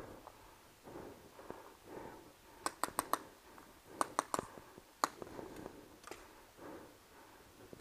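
Paintball markers firing in quick strings of sharp pops: a burst of four shots about three seconds in, another burst of three or four about a second later, and a single shot a second after that, over soft rustling.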